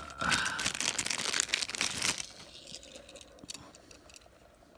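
Thin plastic bag crinkling and rustling as a die-cast toy car is pulled out of it, for about two seconds, then a few faint handling clicks.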